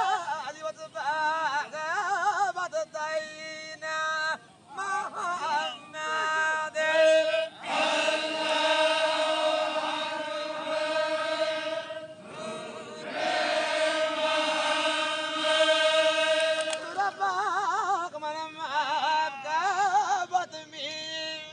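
Zikri chogan devotional chanting by a circle of men. Stretches of a wavering, ornamented solo voice alternate with the group holding long sustained notes, the longest in the middle.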